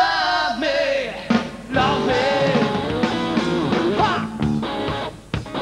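Live funk-rock band playing loud. A held, bending lead note opens it, and drums and the full band come in about two seconds in.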